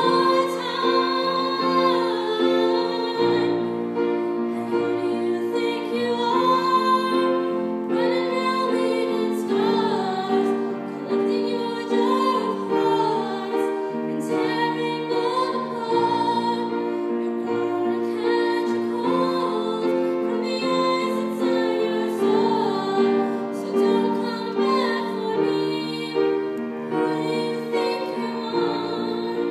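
A young girl singing solo into a microphone, her melody rising and falling over sustained instrumental accompaniment.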